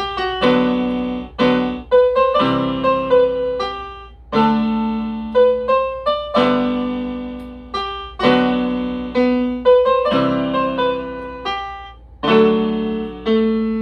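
Global-brand 61-key electronic keyboard playing a slow run of chords with a few single notes between them, with sustain and touch sensitivity switched off. Each chord stops abruptly when released, the sign of the sustain being off.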